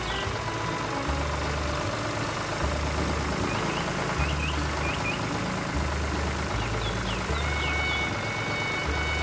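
A cartoon tractor engine running steadily under background music with a repeating bass line. Short high chirps come twice, about midway and again later, and a held high note follows near the end.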